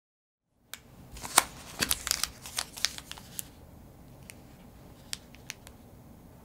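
Clear plastic wrapper around a pastry crinkling as it is handled: a quick flurry of sharp crackles, then a few scattered single crackles.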